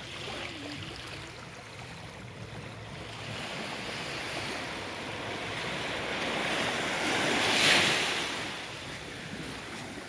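Sea surf washing onto a beach, a wave swelling to a peak about eight seconds in and then falling away, with some wind on the microphone.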